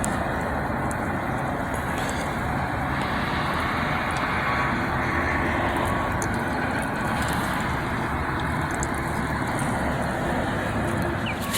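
Steady rushing of water pouring down a small built cascade, an even noise that holds without a break.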